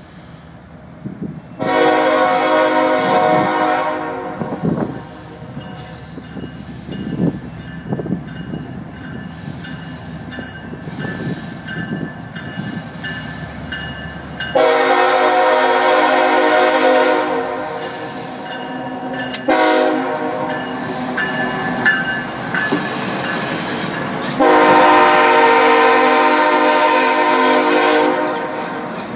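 Freight locomotive air horn sounding three long blasts, each a chord of several notes, the first about two seconds long and the later two about four to five seconds long, spaced roughly ten seconds apart. Between the blasts the train's wheels run on the rails with a steady rumble and scattered clacks.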